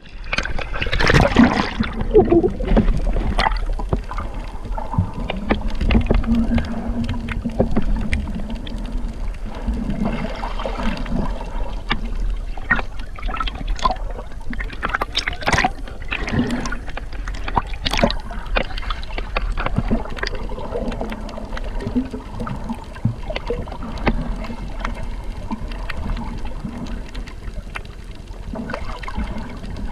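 Water sloshing and gurgling over a steady low rumble, with scattered splashes.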